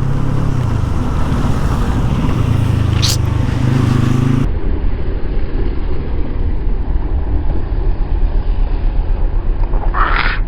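Yamaha R25 motorcycle riding: the engine hums steadily under wind rush, its pitch rising a little about two seconds in. Partway through the sound cuts abruptly to heavy, pulsing wind buffeting and road rumble, with a short hiss near the end.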